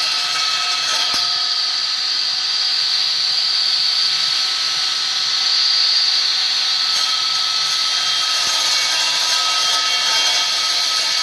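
Homemade stone-cutting saw running steadily: its diamond disc, driven by a single-phase motor on start and run capacitors, gives a constant high whine over a steady hiss.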